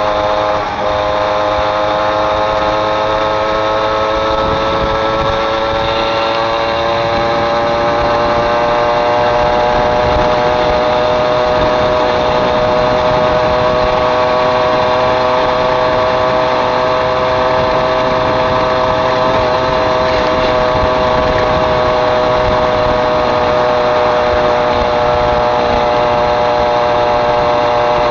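Small two-stroke Mobylette moped engine running under way. Its pitch rises slowly over the first several seconds, then holds steady.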